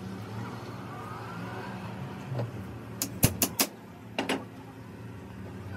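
Sharp metal-on-metal knocks as an axle shaft is fitted into a CV joint clamped in a steel bench vise, with a hammer in hand: four quick knocks about three seconds in and two more about a second later, over a steady low hum.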